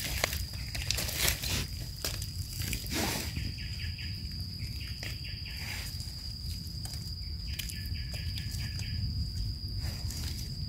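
A steady high-pitched insect drone over a low rumble, with dry leaves rustling and crackling in the first few seconds as mushrooms are picked from the leaf litter.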